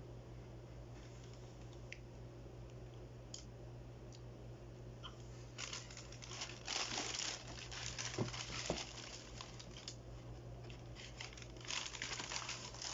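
Paper crinkling and rustling as the shoe box's packing paper is handled, in two spells: from about halfway in, and again near the end. A few light clicks come before it.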